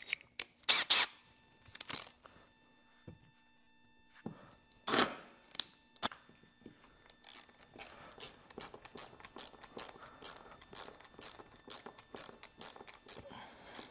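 A few scattered knocks and taps, then a ratcheting screwdriver clicking in a steady rhythm, about three clicks a second, as it drives a stainless steel screw-in snap into a boat's gel-coated hull.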